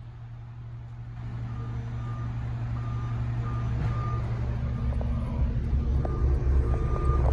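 A reversing alarm beeping steadily over a diesel engine running, the engine growing louder as the machine comes closer.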